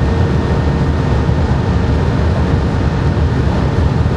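Steady low rumble and rushing of a TGV Atlantique high-speed train running at speed, heard inside the driver's cab.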